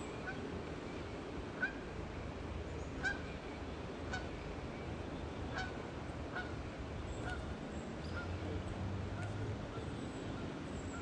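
Geese honking, short calls repeated about once a second, the loudest two about one and a half and three seconds in, over a steady low background hush.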